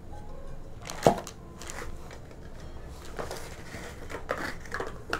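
A nonstick aluminium frying pan handled on a plastic wrapping sheet: one sharp knock about a second in, then plastic crinkling with light scattered clicks.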